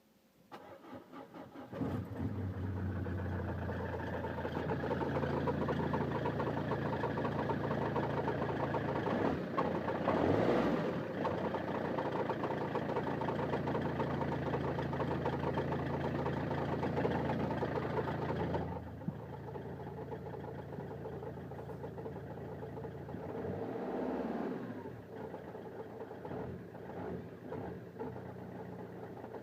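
Peugeot 307 2.0 HDi four-cylinder turbodiesel cranking and catching about two seconds in, then idling cold with a rattle. Two short blips of the throttle come near the middle and later, and the sound drops noticeably about two-thirds of the way through. The owner thinks the rattle comes from a belt, or possibly the dual-mass flywheel.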